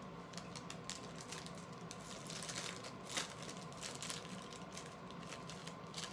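Crinkly plastic wrapper of a cereal bar rustling and crackling in the hands as it is worked open, in a run of small crackles with a busier stretch and a sharp crackle about two to three seconds in.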